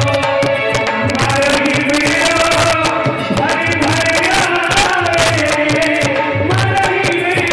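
Live Hindi devotional bhajan music: an instrumental passage with hand drums keeping a steady, driving rhythm under a sustained melody.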